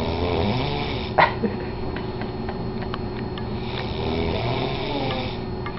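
A man snoring in his sleep with a weird-sounding snore: two snores about four seconds apart, and a brief sharp sound about a second in that is louder than the snoring.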